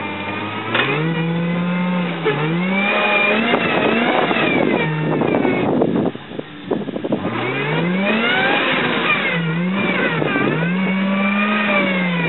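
Toyota pickup's engine revved hard in repeated rising and falling surges as the truck churns through deep mud. The note drops off briefly about halfway, then climbs again and is held high near the end.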